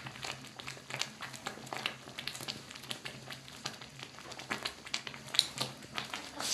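Irregular crackling and popping, several small pops a second, from a pot of ugali cooking over a fire, over a low steady hum.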